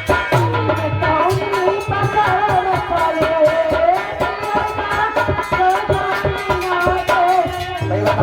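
Indian devotional folk music: quick hand-drum beats under a wavering melody line.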